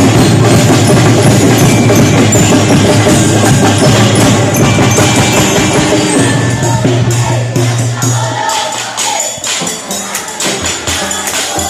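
Music with a heavy bass line and percussion. The bass drops out about eight and a half seconds in, leaving lighter percussion.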